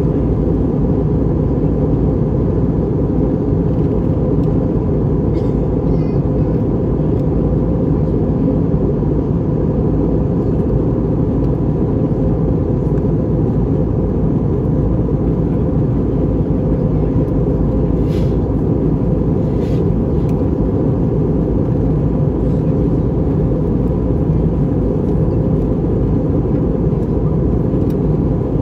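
Steady, deep cabin rumble of an Airbus A321 airliner on approach: engine and airflow noise heard from inside the passenger cabin, with a faint steady whine above it and a few faint ticks.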